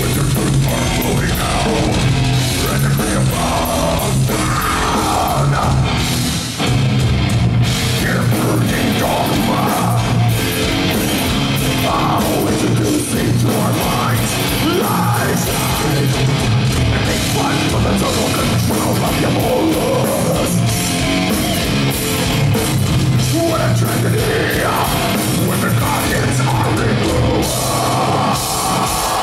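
Death metal band playing live at full volume, heard from the crowd: distorted electric guitars, bass and drum kit, with vocals over the top.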